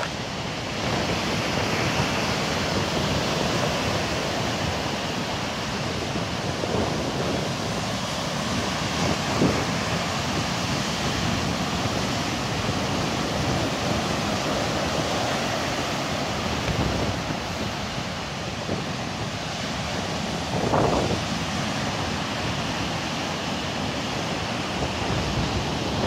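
Heavy surf from a rough sea: big waves breaking and washing up a sandy beach in a steady rush, with wind buffeting the microphone.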